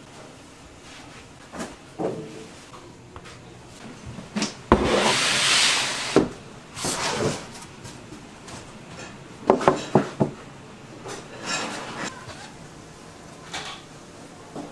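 Kitchen work noises: scattered knocks and rubbing, with a loud hiss lasting about a second and a half about five seconds in.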